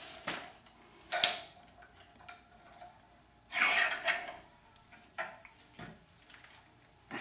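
Short steel bars clinking and rattling against each other and the vise as they are handled. A single sharp, ringing metal clank about a second in is the loudest sound, and a longer rattling clatter follows in the middle.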